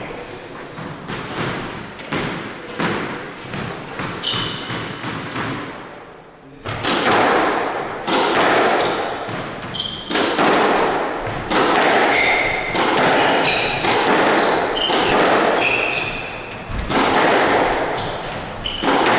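Squash rally: the ball struck by rackets and smacking off the court walls in repeated sharp hits, with short squeaks of court shoes on the wooden floor.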